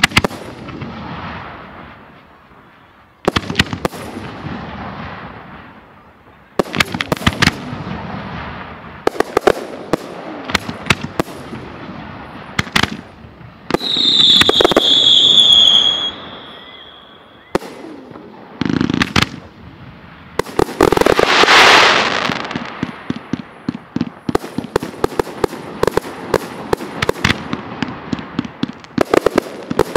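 Aerial fireworks of a display, about 3 to 5 inch shells and cakes, going off in a string of bangs, each followed by crackling. About 14 s in, a loud whistle drops slightly in pitch, and around 21 s a long loud hissing rush builds and fades. In the last few seconds the crackling turns rapid and dense.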